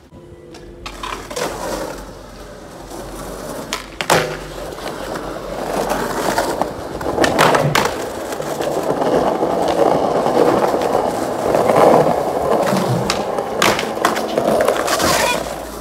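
Skateboard wheels rolling on rough concrete, a rumbling roll that builds up about a third of the way in and stays loud until near the end. It is broken by several sharp clacks of the board hitting the ground.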